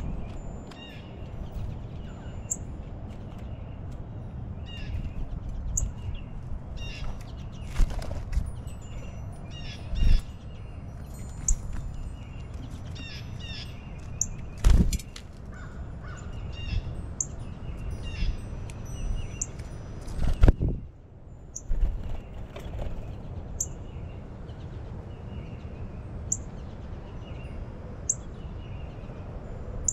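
Wild birds calling: short high chirps repeating every couple of seconds among other lower calls, over a steady low rumble. A few sharp knocks stand out, about 8, 10, 15 and 20 seconds in.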